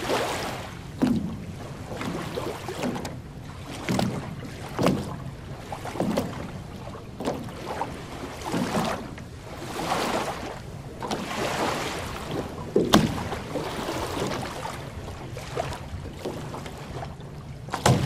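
Small lake waves lapping on a sandy shore, washing in and out in irregular surges every second or two, with a few sharper splashes.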